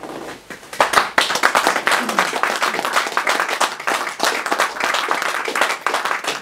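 Audience applause: a few soft claps at first, then full, dense clapping from about a second in.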